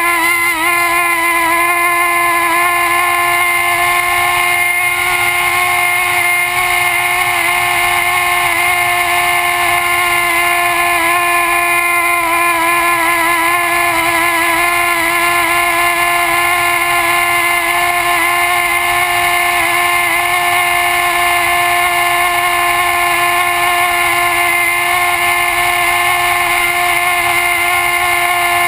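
MiniXE radio-controlled flying wing's motor and propeller running at a steady high speed in flight, a loud, even whine heard close up from the airframe, its pitch wavering slightly now and then.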